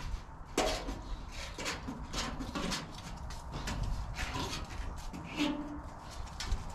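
Irregular rustling and scattered clicks from handling yellow Romex cable and fastening it up against a steel carport roof, with a few short faint squeaks.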